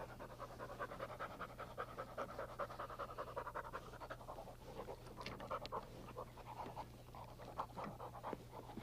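Springer Spaniel panting rapidly and steadily, with a few small clicks about halfway through.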